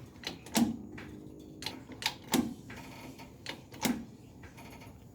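Sharp knocks and clicks of tools and metal parts being worked at a pickup truck's rear torsion-bar mount, the loudest about every second and a half, each with a short ring.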